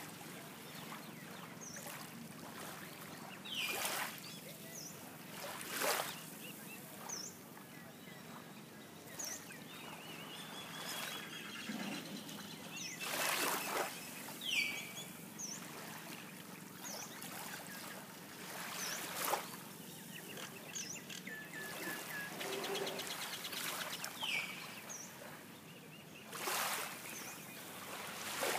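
Calm sea lapping at a sandy shore, swelling softly every few seconds over a steady hiss, with birds giving short high calls and a few brief falling notes.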